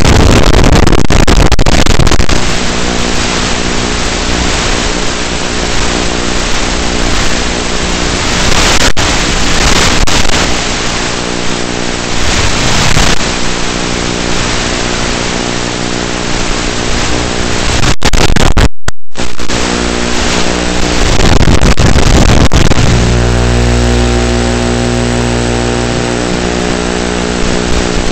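The UMX Turbo Timber's small brushless electric motor and propeller heard from on board in flight: a buzzing drone of several steady tones that shift as the throttle changes, over a heavy rush of air noise. It is loudest at full throttle in the first two seconds and again just after twenty seconds, and the sound cuts out for an instant about nineteen seconds in.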